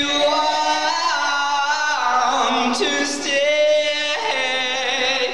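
Several voices singing long, held notes that change pitch about once a second.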